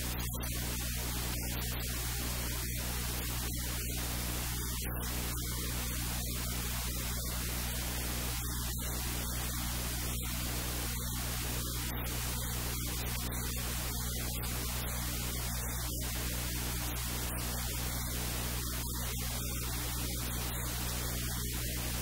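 Steady, even static hiss with a low electrical hum underneath, unchanging throughout.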